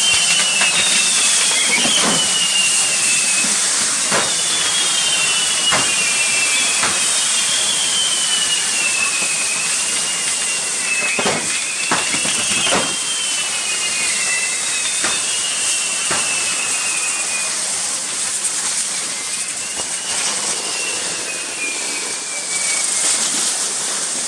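Fireworks on a burning pyrotechnic figure: a steady, loud hiss of fountains, with whistling fireworks one after another, each gliding down in pitch, and several sharp cracks.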